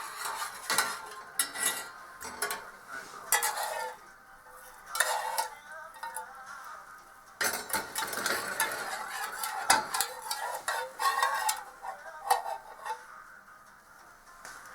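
A spoon clinking and scraping against a saucepan in irregular strokes as melting sugar is stirred for boiled-sugar lollipops.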